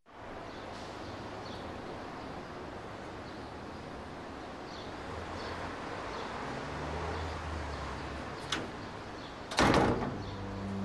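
Steady background noise with a faint low hum, a short sharp click, then near the end a single loud thump of a door shutting.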